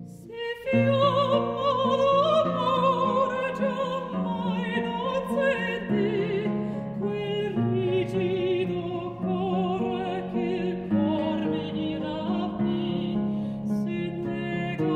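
A mezzo-soprano singing with a wide vibrato, accompanied by plucked theorbo chords and bass notes; the voice comes in about half a second in after a short theorbo passage.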